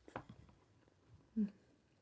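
Close-up chewing of a mouthful of food: a few wet mouth clicks and smacks, then a short low hum-like vocal sound about a second and a half in.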